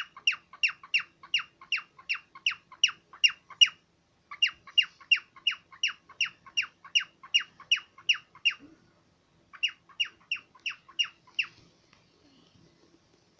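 Cockatiel calling over and over: short, sharp, high notes that each drop in pitch, about three a second, in three runs separated by brief pauses.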